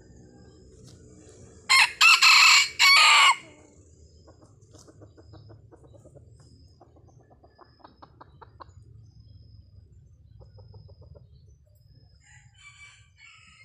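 Red junglefowl rooster crowing once, a short crow broken into about four parts, followed by a run of soft low clucks.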